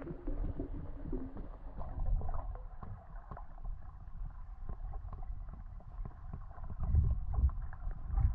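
Underwater sound heard through a camera's waterproof housing: a muffled low rumble of water movement with scattered faint clicks, swelling louder for a moment about seven seconds in.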